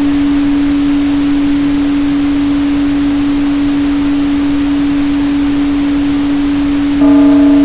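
A steady 285 Hz sine tone under a constant bed of pink noise. Near the end a ringing tone with several higher overtones comes in suddenly, making it louder.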